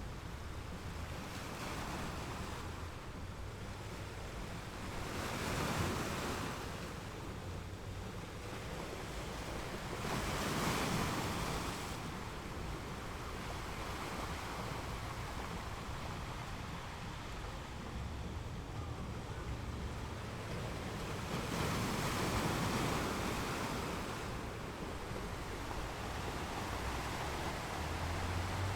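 Sea waves washing and surging, three swells rising and falling over a steady low rumble, with wind buffeting the microphone.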